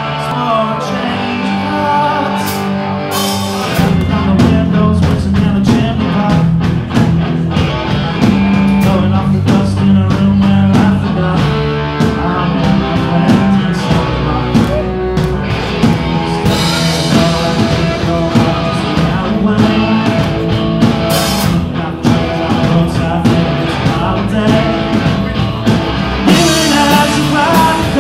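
A live rock band playing: electric guitars and a drum kit, with a singer. The opening is guitar-led, and about four seconds in the drums and bass come in fully.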